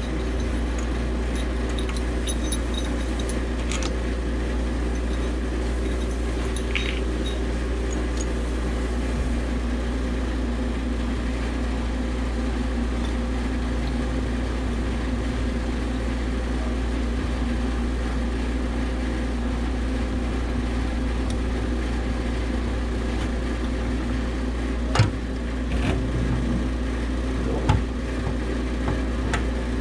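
Rented pipe-freezing machine running steadily, its refrigeration compressor making an even hum with several steady low tones while it holds an ice plug in the water line. Two sharp knocks come near the end.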